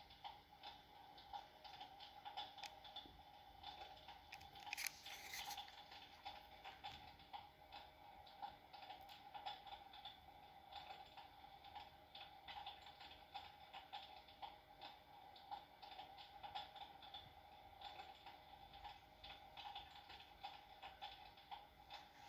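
Electric fireplace's built-in log-crackle sound effect: faint, irregular crackles and pops like burning logs over a steady faint hum, with one louder crackling burst about five seconds in.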